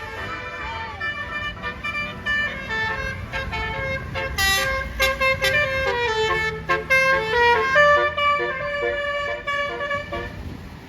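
Tour bus basuri musical air horn playing a fast tune of short notes that step up and down, loudest about two-thirds through, over a low rumble.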